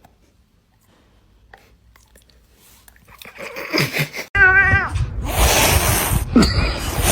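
A pet animal's loud wailing cries, pitched and sliding downward, begin about three seconds in. A harsh hiss follows, then another falling cry near the end.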